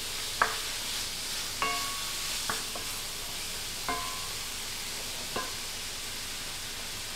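Ground beef sizzling in a cast iron skillet as it is stirred with a wooden spoon: a steady hiss with about half a dozen sharp taps where the spoon knocks against the pan, a couple of them leaving a short ring.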